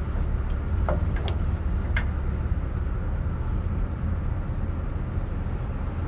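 Truck engine idling steadily with a low rumble, and a few light clinks of a tie-down chain being handled.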